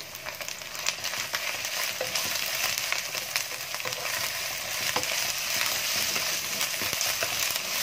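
Shrimp sizzling in hot oil with sliced shallots, chillies, lemongrass and galangal in a non-stick wok, stirred and pushed about with a wooden spatula. There are a couple of light knocks of the spatula against the pan.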